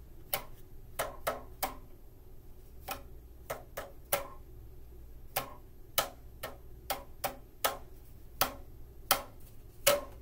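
Homemade paper-towel-tube boomwhackers, cut to lengths tuned to do, mi, sol and la, tapped end-down on a tabletop to play a simple tune. About twenty short pitched taps in an uneven rhythm, grouped in phrases with brief pauses; the loudest taps come near the end.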